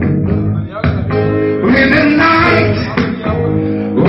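Live blues band playing: electric and acoustic guitars over a steady beat, with a man singing.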